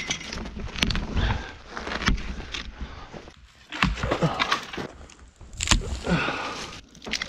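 Dead wood being snapped and gathered, with crunching footsteps: a handful of sharp cracks come at irregular intervals among scuffing and rustling.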